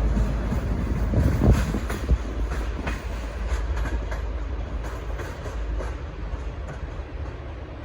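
V/Line passenger train pulling out, its wheels clicking over rail joints over a low rumble, growing gradually fainter.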